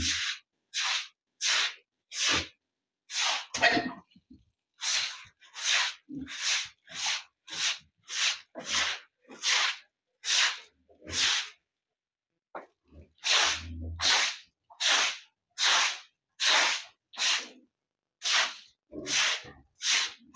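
A broom scrubbing a wet concrete pig-pen floor in short, hard strokes, about one and a half a second, with a pause of about a second a little past halfway.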